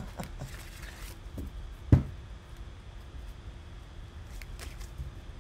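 A tarot deck being handled and shuffled by hand: a soft rustle of cards, one thump about two seconds in, and a few faint card clicks near the end.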